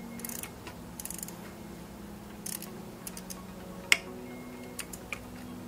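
Hand ratchet wrench clicking in short runs as a water pump bolt is turned down, with single sharp metal clicks near the end, the loudest about four seconds in.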